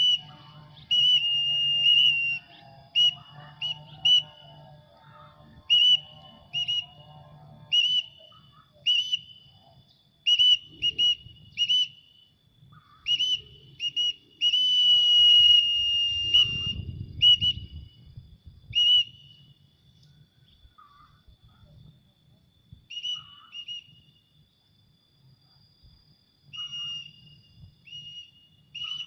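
Whistled calls at one steady high pitch, many short blasts with a few longer held ones, calling a trained pallow bird down from flight back to the handler. They come thick for the first twenty seconds or so, then thin out and grow fainter.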